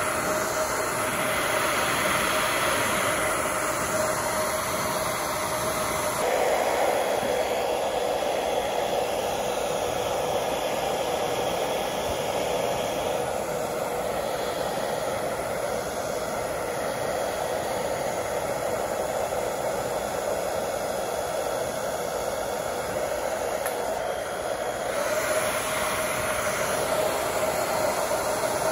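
Hand-held hair dryer running steadily, a rushing blow of air over a constant hum. The hum's tone changes about six seconds in and changes back near the end.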